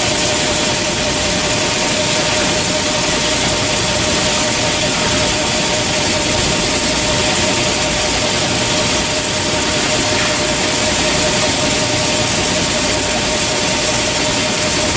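DAMA HDC-2020 high-speed drilling center face milling a workpiece: the spindle and cutter run steadily, giving an even, loud cutting noise with a constant whine.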